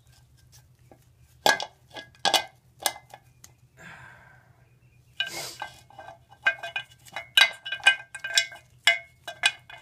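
Metal parts of a Kawasaki Ninja 250R magneto clinking and tapping against the stator and its aluminium cover as they are handled. There are a few separate ringing clicks at first, then a quick run of them, about three or four a second, in the second half.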